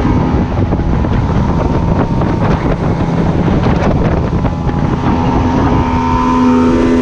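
Yamaha 40 outboard motor running at speed on a small aluminium boat, with wind buffeting the microphone and water rushing past. The engine's steady tone comes through more clearly near the end.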